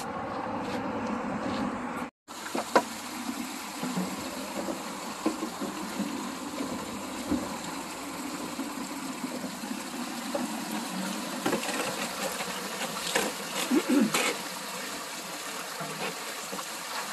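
Spring water streaming from pipes into large plastic water jugs: a steady splashing hiss, with a few clicks and knocks. Before a short break about two seconds in, there is a hum of road traffic.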